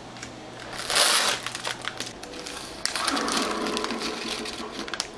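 Plastic Oreo cookie package crinkling and rustling as hands open it, with a louder burst of rustling about a second in and crackling through the second half.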